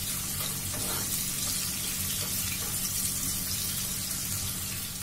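Sliced onions sizzling steadily in hot oil in a frying pan while a spatula stirs them, early in frying while they are still pale.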